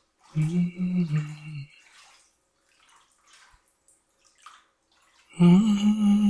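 A man hums a slow tune in held, low notes, one short phrase about half a second in and another starting near the end. In between, bath water splashes and drips faintly.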